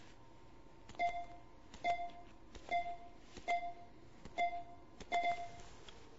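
PulStar computerized chiropractic instrument running a post-treatment analysis pass: six evenly spaced sharp clicks, each followed by a short beep, about every 0.8 s.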